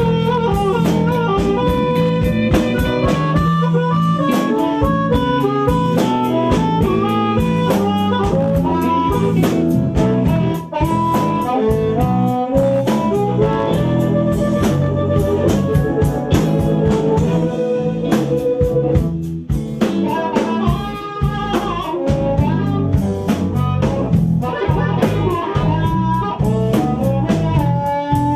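Live blues band playing an instrumental passage, an amplified blues harmonica blowing held, bending notes over electric guitar and drum kit, heard off the amps in the room.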